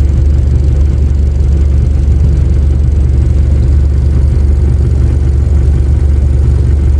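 A hire boat's engine running steadily, a loud low drone that holds even throughout.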